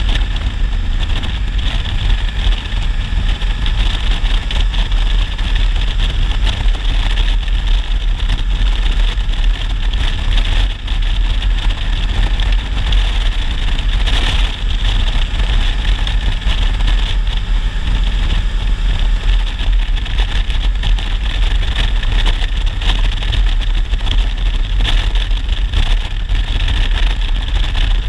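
Honda Africa Twin DCT's 1000cc parallel-twin engine running steadily at a cruise of about 65 km/h, mixed with a heavy rush of wind over the microphone.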